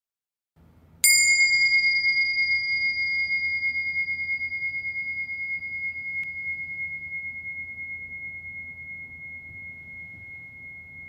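A meditation bell struck once about a second in, ringing with a single high, clear tone that fades slowly with a pulsing wobble.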